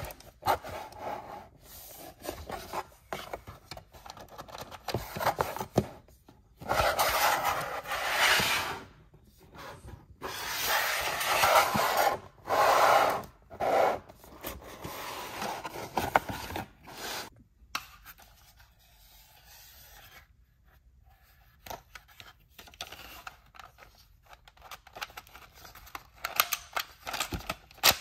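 Hands handling and unpacking a toy dart blaster's cardboard-and-plastic box: rubbing and scraping of the packaging in several bursts of a second or two, the loudest in the first half. It then goes quieter, with scattered sharp plastic clicks near the end.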